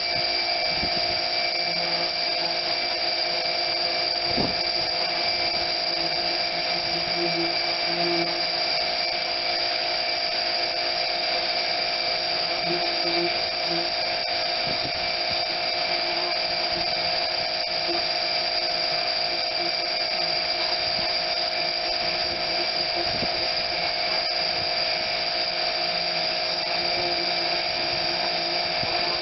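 Small pressure washer running steadily: a high, even motor-and-pump whine over the hiss of the water spray.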